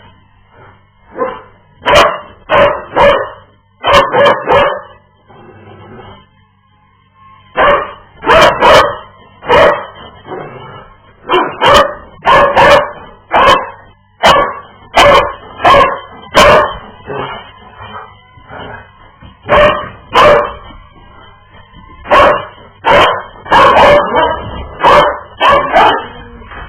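Dog barking and yipping in short loud bursts, in groups of two to four with pauses of a few seconds between them.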